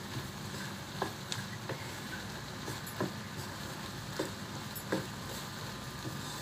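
Wooden spatula stirring squid and vegetable pieces in a non-stick frying pan, a few light scrapes and knocks against the pan about once a second, over a faint steady hiss.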